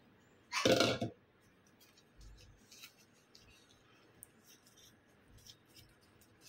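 Bamboo leaves rustling and crinkling softly as hands fold them into a cone around rice to wrap a zongzi. One loud, short rustle comes about a second in, then only faint scattered ticks of the leaf being creased.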